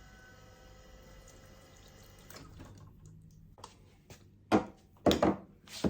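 Espresso machine group head being flushed: the pump hums and water runs through the head for about two seconds, then stops. Three short sharp knocks follow near the end.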